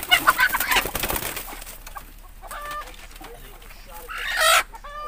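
Native chickens clucking and squawking, with a loud scuffling burst in the first second and one loud, harsh squawk near the end.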